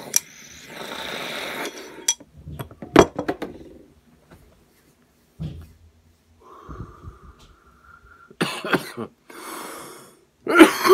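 A person taking a hit of cannabis flower: a long drawn-in breath of smoke with a few clicks, then a slow exhale of smoke, breaking into harsh coughs near the end, the loudest sound.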